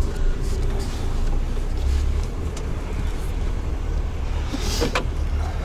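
Heavy truck's diesel engine running with a steady low rumble, and a short hiss of air near the end.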